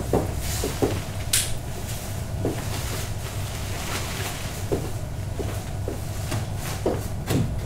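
Footsteps and irregular knocks on a hollow wooden stage floor as a person moves about behind a bar counter, over a steady low rumble. A brief high hiss about a second and a half in.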